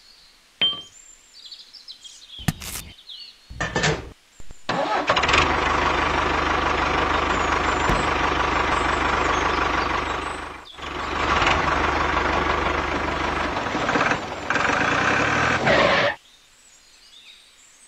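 A few short metal clicks as a pin is dropped into the toy tractor's trolley hitch. About five seconds in, the mini tractor starts running steadily as it tows the trolley, with a low hum under it, and stops shortly before the end.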